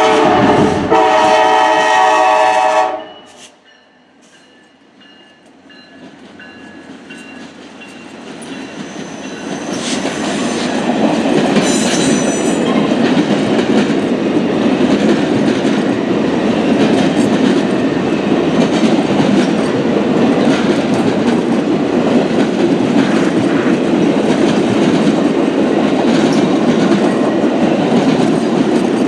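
Diesel locomotive horn sounding a loud chord for about three seconds, then cutting off sharply. After a few quieter seconds, the train's approach builds into the steady rumble and clatter of wheels on rail as the train passes, from about ten seconds in.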